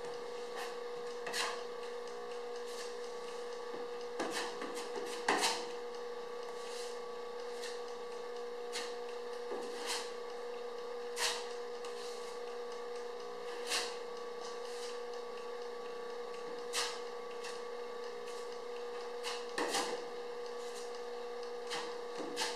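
Plastic spreader working body filler onto a car's sheet-metal quarter panel and scraping it off a mixing board: short scrapes and taps every couple of seconds, over a steady electrical hum.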